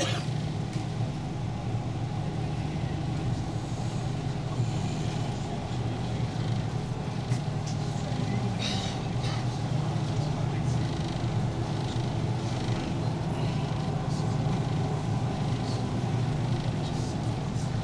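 Engines of a Thames water-taxi boat running steadily under way, a continuous low drone heard from on board.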